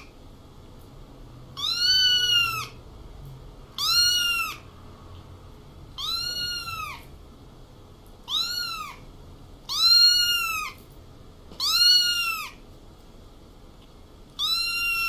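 Very young ginger kitten meowing over and over: seven high-pitched mews about every two seconds, each rising and then falling in pitch.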